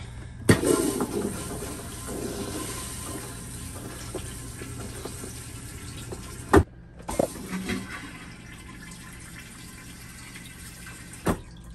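Dometic 320 RV toilet flushed by pressing its foot pedal by hand: a sharp clack about half a second in, water rushing into the bowl for about six seconds, then a clack as it shuts off, followed by a few lighter knocks. It is the first test flush of the newly installed toilet, made to check for leaks.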